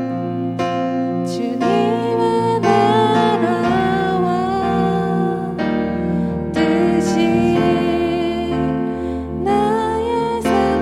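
Worship song with piano accompaniment: struck piano notes at first, then a solo voice singing the melody from about two seconds in.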